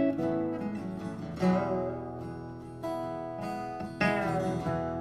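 Acoustic guitars playing an instrumental break in a country song: strummed chords under a lead line that bends its notes.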